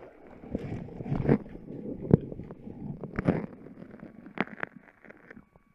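Stomach and intestinal gurgling picked up by a microphone taped against the abdomen: irregular gurgles and rumbles with sharp pops and clicks, a few loud snaps spread through it, and quieter near the end.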